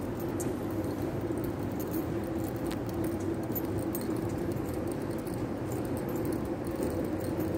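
Steady hum of an underground pedestrian passage while walking through it, with faint scattered clicks and jingling on top.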